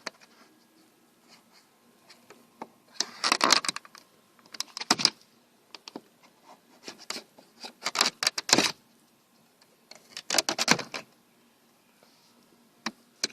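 Plastic clicking and rattling in several short bursts, a few seconds apart, as a Volvo 940's power window switch and door trim are pried loose and handled.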